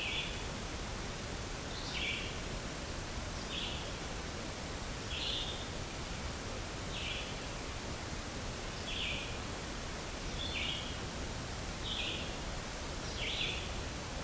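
A short, high-pitched animal call repeated nine times at a steady pace, about once every second and a half, over steady outdoor background hiss.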